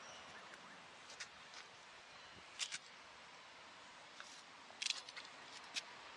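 Faint outdoor hiss with a few soft, irregular clicks, the sharpest about two and a half seconds in and a quick cluster around five seconds.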